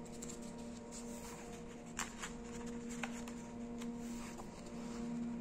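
Faint handling of a ring binder and its paper worksheets: a few soft clicks and rustles, over a steady low hum.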